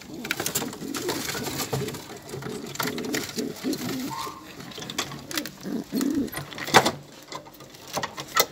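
Domestic pigeons cooing repeatedly in a wooden loft, with scattered knocks and rustling as one bird is caught by hand; one sharp knock stands out about seven seconds in.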